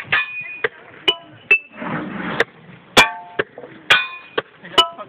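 Sledgehammers striking metal, about seven ringing clangs at irregular intervals, the loudest about three seconds in.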